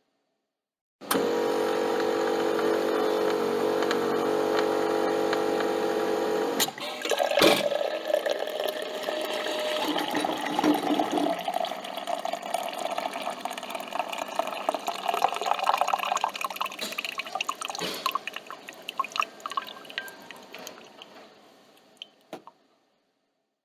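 Coffee machine running with a steady hum. About seven seconds in a knock cuts it short, and liquid runs and drips into the cup, slowly fading away.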